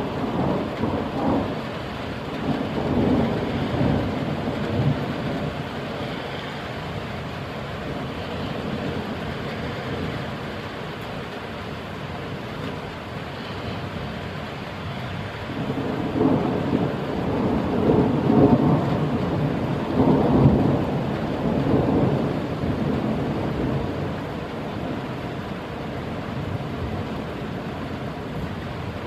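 Steady rain falling, with thunder rumbling twice: once near the start and again about halfway through.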